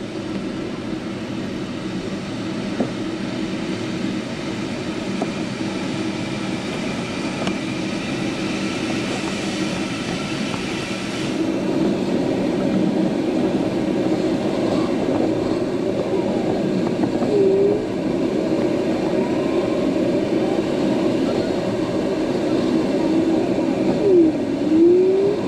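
Airflow rushing past the closed canopy of an ASW 27 sailplane flying a fast low pass, a steady rushing noise that grows louder about eleven seconds in. Two brief chirping tones, one midway and one near the end.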